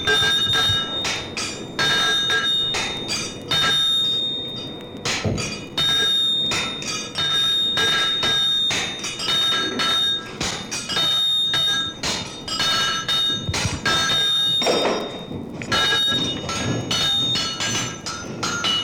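Metal struck over and over in quick succession, each blow leaving a sustained bell-like ring of several steady tones.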